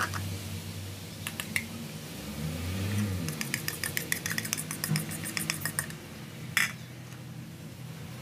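Metal spoon clinking and scraping against a ceramic bowl and a stainless wire-mesh sieve as a liquid mixture is poured and pushed through. A rapid run of light clicks in the middle, and one sharper clink near the end.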